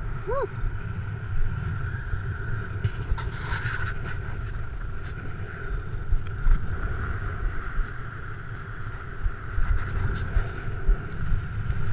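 Wind buffeting a head-mounted camera's microphone on an exposed snowy summit: a constant gusting low rumble.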